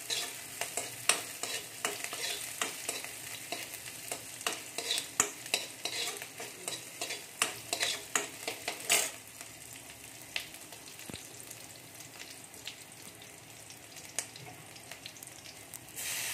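Steel spoon scraping and knocking against an aluminium kadai while stirring chopped onion and green capsicum frying in oil, over a steady sizzle. The clatter stops about nine seconds in, leaving the quieter sizzle, which grows louder near the end as chopped tomato goes into the hot oil.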